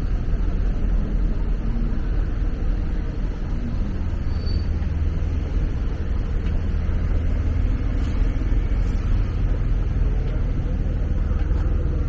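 Steady low rumble of road traffic on a city street, the sound of vehicles running past without a break.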